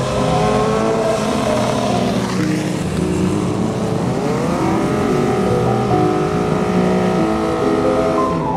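Motorcycle engines revving hard. About four seconds in, one engine's pitch climbs steeply and is held at high revs for a few seconds before dropping off near the end, as for a rear-wheel burnout.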